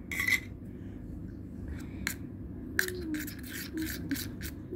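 Metal spoon stirring and scraping thick pink glue-and-paint slime mixture in a steel tumbler: one short scrape at the start, a single click about two seconds in, then a quick run of scrapes and wet clicks in the second half.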